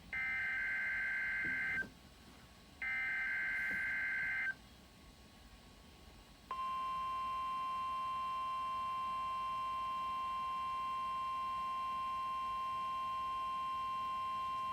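NOAA Weather Radio alert signal: two short digital SAME header bursts, about a second apart, then after a two-second pause the steady 1050 Hz warning alarm tone starts about six and a half seconds in and holds. These signals mark the weekly test of the weather radio warning system.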